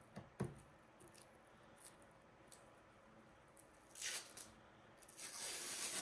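Protective plastic film being peeled off a portable fridge's control panel: a few small clicks at the start as fingers pick at the film's edge, a short rip about four seconds in, then a longer, louder peel near the end.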